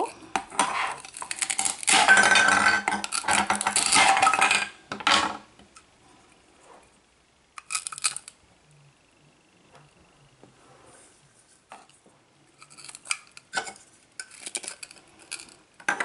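Velcro ripping as the slices of a plastic toy pineapple are pulled apart: a few seconds of dense tearing near the start. Later come a short burst and then scattered clicks and clacks of the hard plastic pieces being handled and set down.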